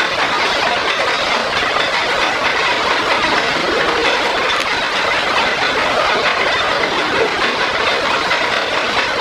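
Metal lathe running through a turning cut: a steady, dense mechanical clatter of the machine and the tool cutting the work.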